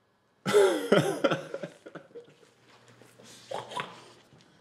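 A short burst of laughter about half a second in: a few quick voiced pulses over about a second, then only faint sounds.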